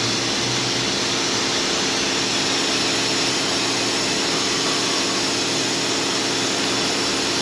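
Vacuum coolant evacuator running steadily, its hose down in the radiator sucking out coolant: an even whirring hum with hiss and no breaks.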